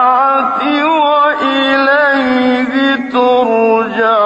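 A man reciting the Quran in a melodic chanting style, drawing out long held notes with wavering ornaments and pausing briefly for breath between phrases.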